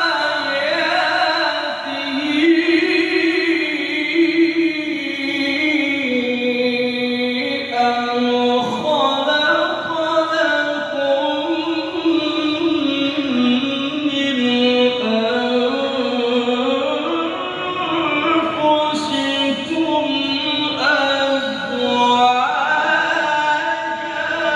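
A male qari reciting the Qur'an in melodic tilawah style, drawing out long ornamented phrases in a high, sustained voice that slides up and down in pitch.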